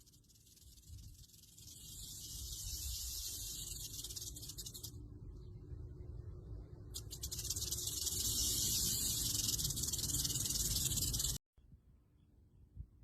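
Rattlesnake shaking its tail rattle: a dry, high buzz of very fast clicks in two long bouts with a pause of about two seconds between them. The second bout is louder and cuts off abruptly. A low rumble runs underneath.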